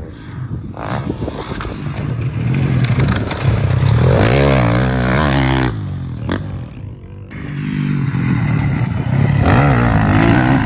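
Dirt bike engines revving hard, the pitch climbing and dropping as the throttle is worked over jumps and through a corner. The sound changes abruptly a few times as the shots switch between bikes.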